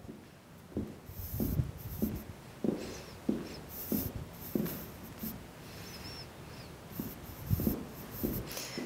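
Ballroom dance shoes walking on a wooden studio floor: soft footfalls about one and a half a second, with scuffs and rubs from the soles, and a short lull a little past halfway.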